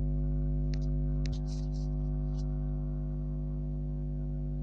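A steady low hum, with a few sharp clicks and short rustles about a second in as a phone camera is handled and turned.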